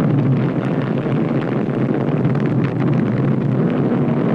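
Vanguard rocket's first-stage liquid-fuel engine firing at ignition and liftoff: a loud, steady rush of noise.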